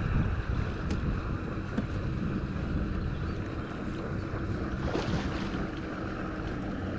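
Wind buffeting the microphone on an open boat over a steady low hum, with a few light clicks and knocks from fishing rods and reels being handled in their holders.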